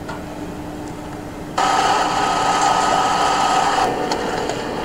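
Steady mechanical buzz of a small electric motor or tool that starts suddenly about a second and a half in and drops a little in level near the end, after a quieter low hum.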